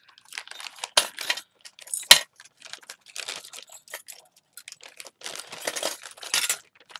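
Metal skeleton key charms clinking and jangling against each other as they are pushed around in a pile, with sharp clinks about 1 and 2 seconds in. Near the end a plastic bag rustles among the keys.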